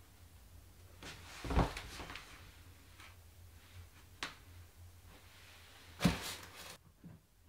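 A swing-arm wall lamp being handled against pine wall panelling: a dull knock about a second and a half in, a sharp click a little past the middle, and a louder knock with a short scrape near the end.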